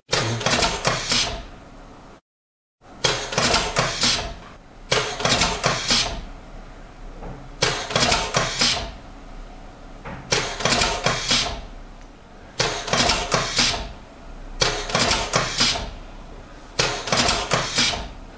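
Pneumatic touch marking machine cycling: each stroke of its air cylinder and stamp head gives a burst of sharp clacks about a second long, repeating about every two seconds. The sound cuts out completely for about half a second around two seconds in.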